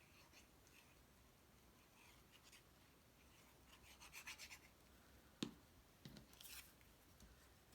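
Faint rubbing and rustling of cardstock pieces being handled and pressed together, with a single light tap about five and a half seconds in.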